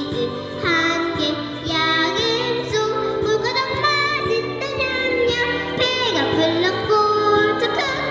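A young girl singing a children's song into a microphone over a backing track with a steady beat.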